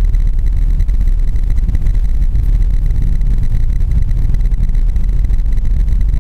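Suzuki Grand Vitara driving through deep snow, heard from inside the cabin: a steady low rumble of engine and running noise.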